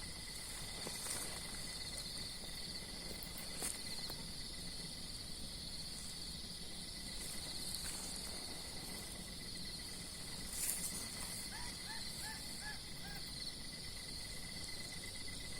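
Night insect chorus, crickets trilling steadily in several high-pitched bands, with a couple of faint clicks and, about twelve seconds in, a short run of about six soft chirps.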